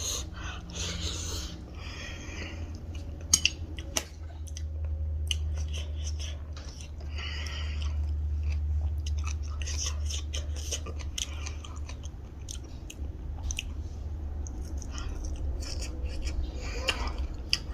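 Close-up chewing and biting of a mouthful of rayo saag (mustard greens) with rice, with many small wet mouth clicks, over a steady low hum.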